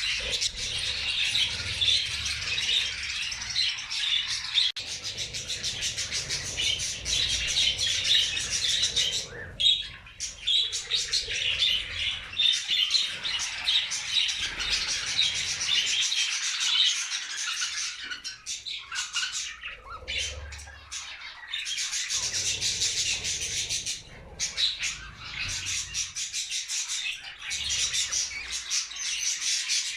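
A flock of budgerigars chattering and chirping continuously, many birds at once, with a few brief lulls.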